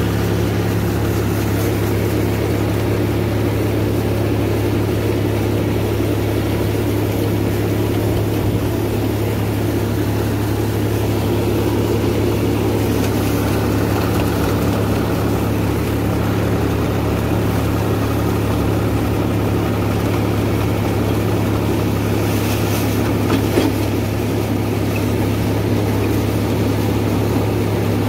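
John Deere 5310 tractor's three-cylinder diesel engine running steadily under load, driving a PTO-powered rotavator that churns soil and banana trash. A short clatter comes late on.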